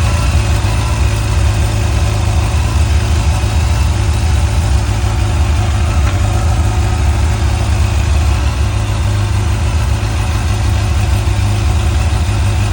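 Yamaha FJR motorcycle's inline-four engine running steadily at idle.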